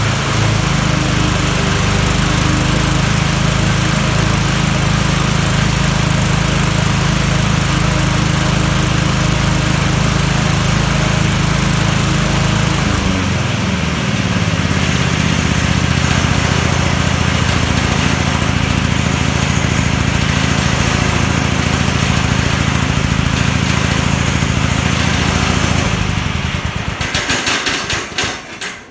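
Craftsman LT1000 riding mower's 16 HP engine running after a cold start, with banging from the deck because the blades engage with the engine: the blade pulley has no return spring. The engine note shifts about halfway through, and near the end the engine slows and is shut off.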